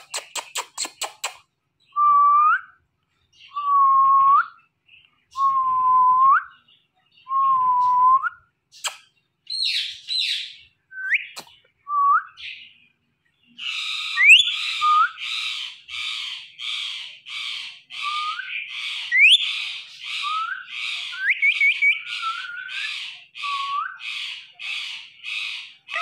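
Quick kissing smacks, then four loud whistled notes, each held about a second and rising at the end, then a long run of kissing smacks about two a second mixed with short rising whistles: a man and his Indian ringneck parrot trading kiss sounds and whistles.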